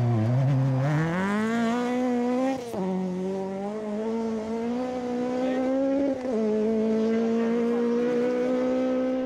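Toyota Starlet rally car's 4A-GE 16-valve four-cylinder engine under hard acceleration, its pitch climbing, with two quick upshifts of the sequential gearbox about three and six seconds in, each a sudden drop in pitch.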